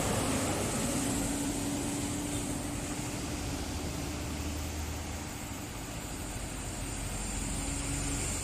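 Steady road-traffic noise from a passing bus: engine drone and tyre hiss, with a deeper engine hum for a couple of seconds in the middle.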